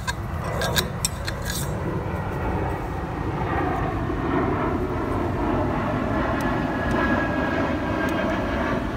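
Airplane passing overhead, a steady drone that builds and holds. A few sharp clicks come in the first two seconds.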